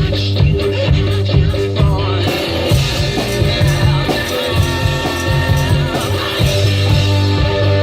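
One-man band playing a rock song: guitar and bass parts on a single combination guitar-bass, with bass drum and hi-hat worked by foot pedals keeping a steady beat.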